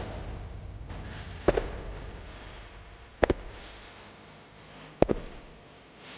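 Four sharp clicks or snaps, spaced roughly a second and a half to two seconds apart, with the third one doubled, over a hiss that slowly fades.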